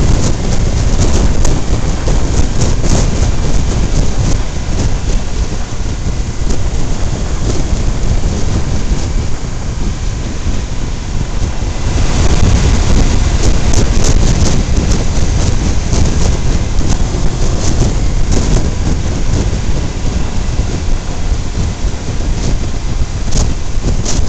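Wind buffeting the microphone of a camera moving at road speed just above the pavement, a heavy, steady rush and rumble with scattered crackles, mixed with tyre and road noise.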